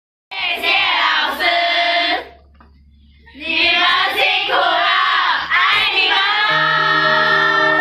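A group of teenage girls shouting together in unison, a short burst and then a longer one that turns into cheering. Soft background music with held notes comes in near the end.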